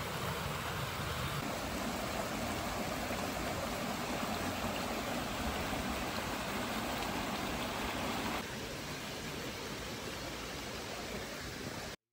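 Steady rushing noise, a little quieter from about eight seconds in, cutting off suddenly just before the end.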